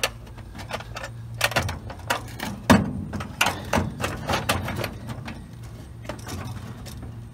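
Irregular knocks and taps as a hinged fuse and relay panel board is held, shifted and swung against the car's metal side wall under the dash, the loudest knock about two and a half seconds in. A steady low hum runs underneath.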